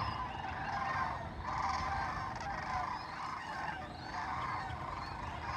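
A large flock of waterfowl calling in flight, many overlapping calls blending into a continuous chorus.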